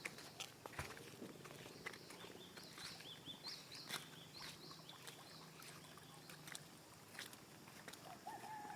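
A small bird calling in a quick series of faint, short high chirps, with scattered soft ticks and taps around it.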